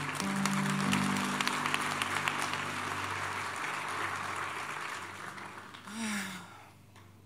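Congregation applauding over a soft, sustained keyboard chord; the clapping thins out and fades over the last couple of seconds, with a brief voice near the end.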